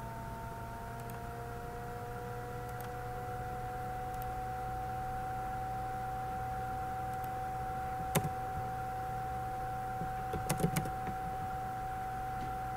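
Steady electrical whine with a low hum beneath it, one tone creeping slightly up in pitch in the first couple of seconds. A single sharp click about eight seconds in and a quick run of four or five clicks about two seconds later, typical of a computer mouse and keyboard.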